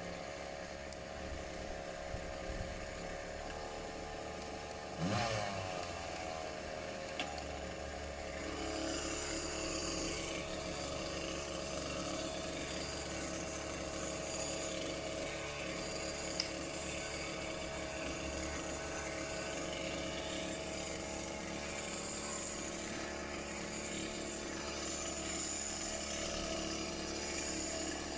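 Chainsaw engine running steadily, with one short burst of revving about five seconds in.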